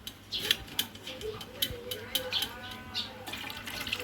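Kitchen sink sounds as cooked spaghetti is rinsed in cold water and drained: running tap water with repeated sharp clatters and knocks of utensils and a pot or strainer. About two seconds in, a drawn-out tone rises and falls.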